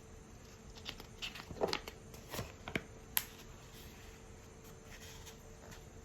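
Sticker card and its packaging being handled: a run of light crackles and taps from about one to three seconds in, over a faint steady hum.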